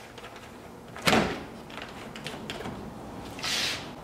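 Plastic gallon jug set down on a wooden workbench with a single thump about a second in, followed near the end by a short scuffing sound of things moved on the bench top.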